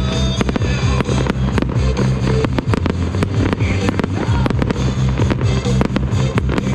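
Fireworks display: aerial shells bursting and crackling in quick succession, several bangs a second, with loud music playing underneath.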